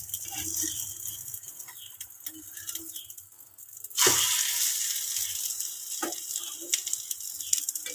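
Egg omelette sizzling in oil in a frying pan. About four seconds in it is flipped with a metal skimmer: a sharp thump as it lands, after which the sizzle is louder, with a few light taps of the skimmer on the pan.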